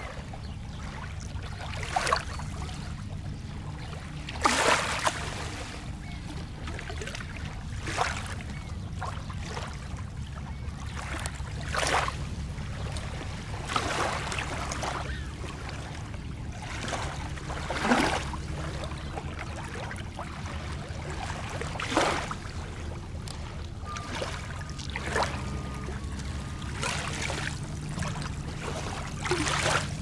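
Small Lake Michigan waves lapping onto a sand and pebble shore, a short wash every two to four seconds. A steady low rumble runs underneath.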